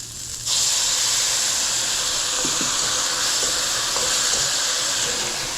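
Stir-fry sauce thickened with cornstarch slurry poured into a hot pan of oil and vegetables, setting off a sudden loud sizzle about half a second in that hisses on steadily as the liquid boils off.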